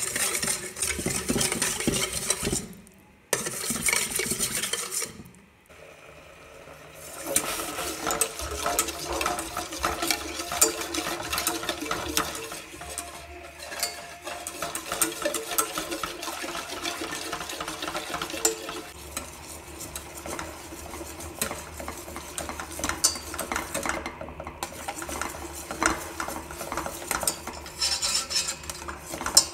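Metal wire whisk stirring a chocolate syrup mixture in a steel pan, its wires clinking and scraping against the pan, broken by two short gaps early on. A steady low hum runs underneath from about seven seconds in.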